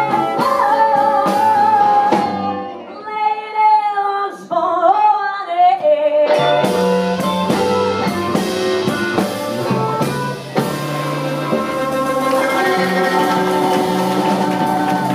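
Live blues band playing: a woman singing with electric guitar, electric bass and drums. About two seconds in the band drops out for a few seconds, leaving her voice nearly alone, then the full band comes back in.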